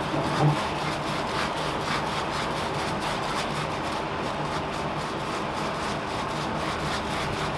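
Foam sponge brush spreading Mod Podge sealer over the rough, faceted drills of a diamond painting: a scratchy rubbing in quick repeated back-and-forth strokes. A steady low hum runs underneath.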